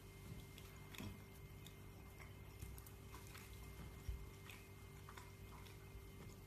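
Faint, scattered light clicks of a metal fork against a dinner plate, over a low steady hum of room tone.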